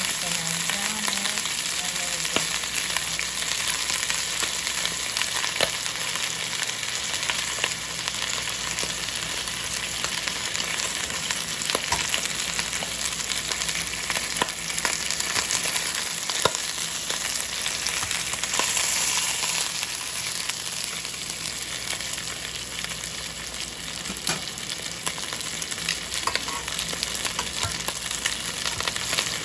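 Chicken pieces frying in hot olive oil in a pan: a steady sizzle with scattered small pops and crackles, as the outside browns and crisps.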